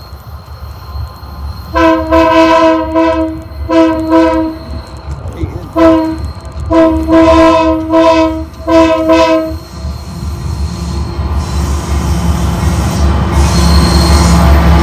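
Lead diesel locomotive's multi-chime air horn sounding five blasts, long and short, each a chord of several steady tones. After the horn stops, the rumble of the locomotives' engines and wheels on the rails grows steadily louder as the train comes up and passes close by.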